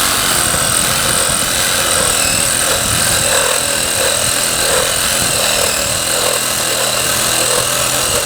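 Ryobi 18-volt cordless reciprocating saw with a pruning blade running steadily, cutting through a small tree trunk.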